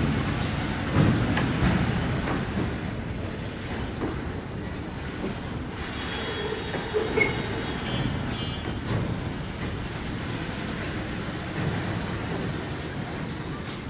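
Empty BCNA covered freight wagons rolling past, wheels clattering and knocking over the rail joints, with a faint brief wheel squeal about halfway through.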